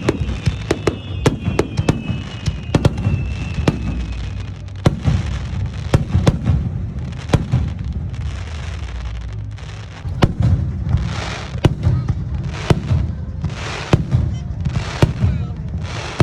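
Fireworks display: aerial shells bursting in quick, irregular succession, with a falling whistle in the first few seconds. From about ten seconds in, the bangs come with short bursts of hiss.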